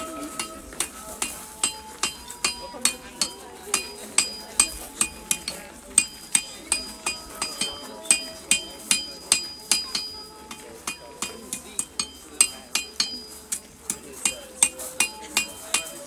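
A hammer striking ringing metal in quick, irregular blows, about three or four a second, each leaving a brief high ring. A faint tune of held notes plays behind.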